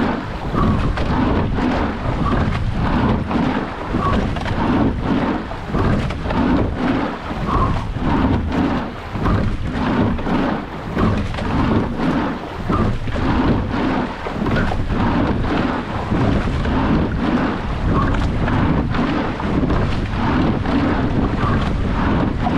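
Wind buffeting an action camera's microphone together with water rushing and splashing along a moving rowing boat's hull and oars. The noise swells and eases in a regular rhythm with the rowing strokes.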